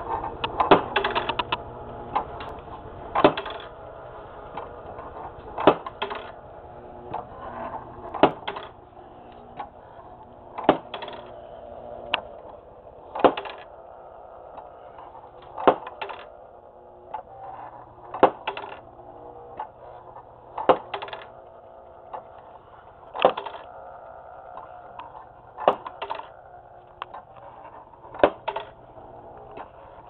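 Working wooden model of a 'knock and drop' up-and-down sash sawmill running, with a sharp clack about every two and a half seconds and lighter clicking between, over a steady hum.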